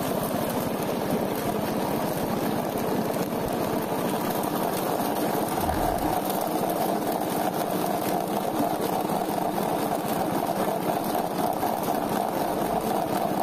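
Drum-type poultry plucker running steadily, its motor spinning the rubber-fingered bottom plate as scalded quail tumble against the rubber plucker fingers.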